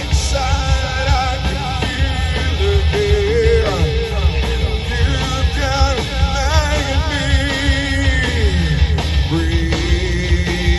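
Rock band playing an instrumental passage: a lead melody with wide vibrato and pitch bends, sliding down about eight seconds in and then holding a long note, over driving drums and bass.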